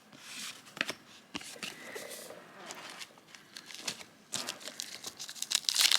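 Baseball cards and plastic card sleeves being handled: soft rustling with a few small clicks, turning into louder, denser plastic crinkling near the end as a card is slid into a sleeve.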